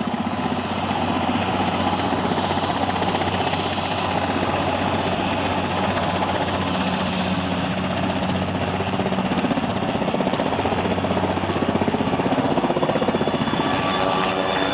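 Small quadcopter drone's electric motors and propellers running with a steady buzzing hum at constant speed in flight.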